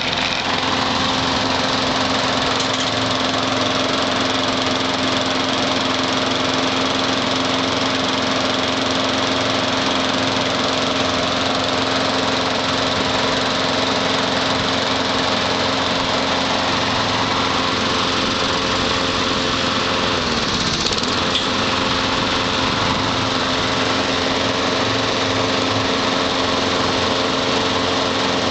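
Craftsman mulching push mower engine running at a steady speed, with one brief drop in engine speed about twenty seconds in before it picks back up.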